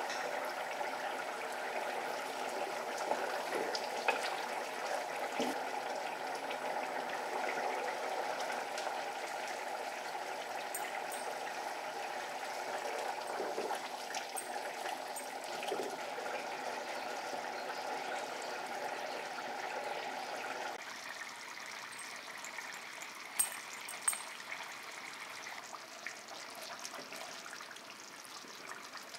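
Thick curry simmering in a clay pot, a steady bubbling and popping that drops a little about two-thirds of the way through. Two sharp clicks come close together after that.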